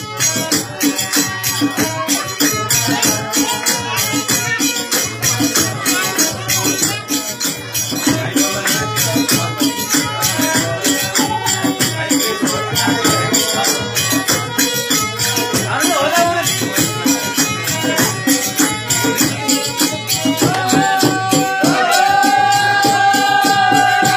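Loud music with a fast, steady beat and rattling shaker-like percussion. About twenty seconds in, a long held note comes in over it.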